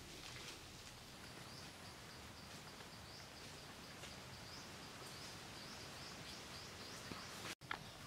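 Faint forest ambience with a steady series of short, high chirps repeating about two to three times a second. The sound cuts out briefly near the end.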